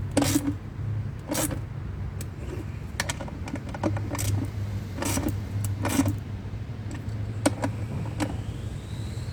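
Irregular sharp metallic clicks and clinks of hand tools, nuts and washers being handled and tightened on a motorcycle saddlebag mounting bracket, over a steady low hum.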